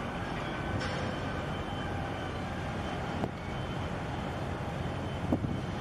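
Steady low rumble and hiss of harbour noise, with faint steady tones above it. A click sounds a little after three seconds in, and a sharper knock comes near the end.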